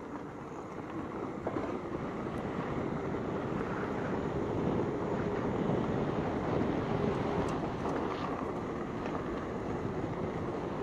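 Wind rushing over the camera microphone and tyres rumbling on a dirt trail as an electric enduro bike speeds along; the noise grows louder over the first few seconds as the bike gathers speed, then holds steady.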